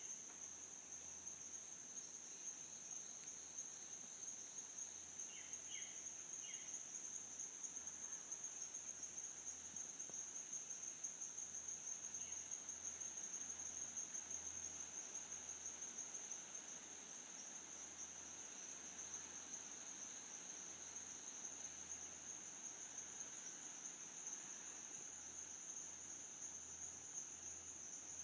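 Steady, high-pitched insect chorus: a continuous shrill drone that never breaks.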